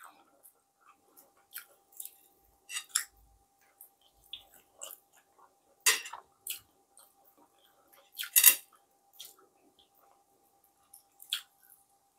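Eating sounds from fried tilapia picked apart and eaten by hand: scattered short crunches, crackles and mouth smacks of crisp skin and small bones. The loudest come about six and eight and a half seconds in.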